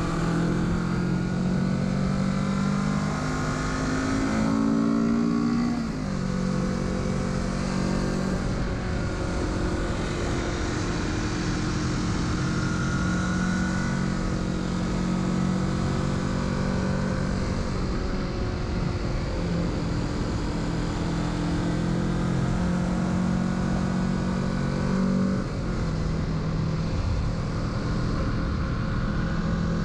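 2021 Kawasaki Z650's parallel-twin engine under way: the revs climb for a few seconds, fall sharply at a gear change about six seconds in, then hold fairly steady, with another drop in revs late on. A steady rush of wind noise runs underneath.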